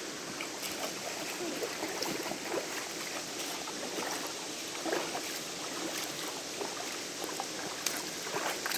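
Shallow river water running over rocks: a steady rush with small trickles and splashes scattered through it.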